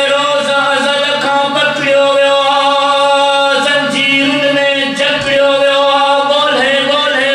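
A man singing Sindhi Sufi poetry live in a classical style, his voice sliding between held notes over a steady drone.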